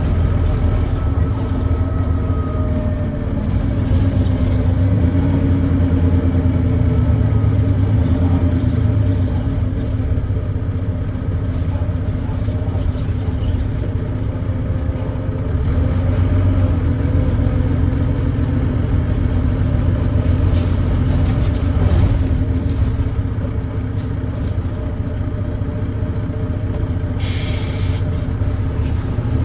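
Volvo D9B diesel engine of a Volvo B9TL double-decker bus running under way, its note rising and falling, with the thrash of an exhaust leak. A short hiss comes near the end.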